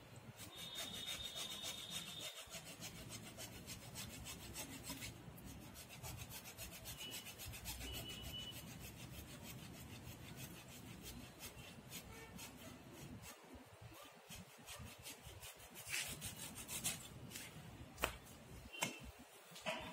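Hacksaw cutting through the thick woody roots of a tree, in repeated rasping back-and-forth strokes. This is root pruning, which removes the heavy roots and leaves only the thin fibrous ones.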